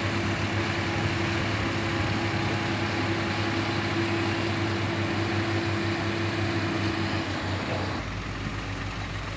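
Diesel engines of a dump truck and an excavator running steadily with a low hum while the truck reverses. About eight seconds in, the sound drops and changes abruptly.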